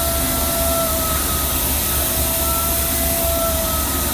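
Air-driven portable flange facing machine running steadily as it cuts serrations into a pipe flange face: a constant hiss with a steady, slightly wavering whine.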